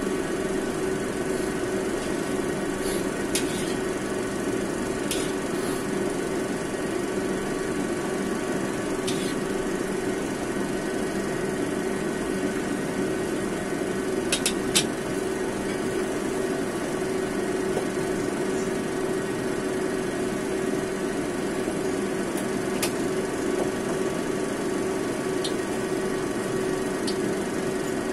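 A steady hum runs under a handful of light clinks and scrapes of a stainless steel spatula against a wok as oil heats in it, the loudest a quick pair of clinks about fifteen seconds in.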